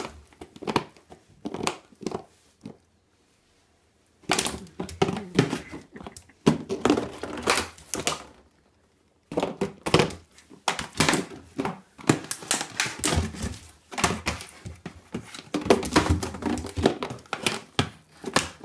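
An empty 2-litre plastic PET bottle crinkling and crackling in irregular bursts as a Shiba Inu bites, carries and paws at it. The bottle knocks now and then, and there are two short pauses, about 3 s and 9 s in.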